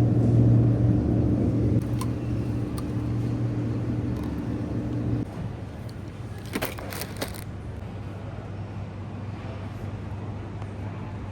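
A steady low mechanical hum with a fixed pitch, which drops to a quieter hum about five seconds in. There are a couple of faint clicks, then a short clatter of knocks about six and a half seconds in.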